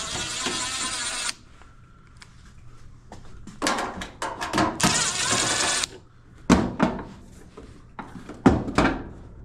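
Cordless drill-driver running in three short bursts, backing out screws from the washer's panel, followed by a few sharp knocks and clicks of loosened parts being handled.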